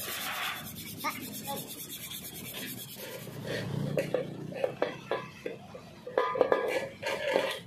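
Sandpaper rubbed by hand over the bare metal of a motorcycle body panel, in uneven scratching strokes that come thicker after about six seconds.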